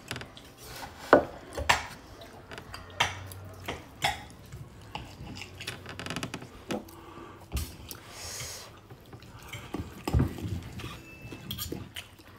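Metal fork and knife clinking and scraping against a ceramic dinner plate, a series of scattered light clicks as food is scooped and cut.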